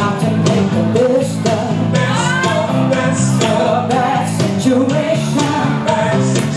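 A woman singing a soul song through a microphone over backing music with a steady beat and bass, her voice sliding up and down in runs.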